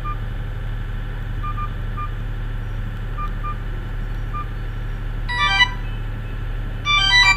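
Vgotel S500 keypad phone giving short single key-press beeps as its menus are scrolled, over a steady low hum. A little past halfway and again near the end, brief snatches of a ringtone melody play from the phone's speaker as a ringtone in the list is previewed.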